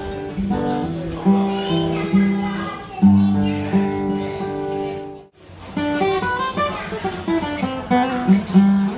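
Yamaha FG800 solid-spruce-top acoustic guitar played in a tone test: ringing chords, then single notes. The playing cuts off about five seconds in and starts again a moment later.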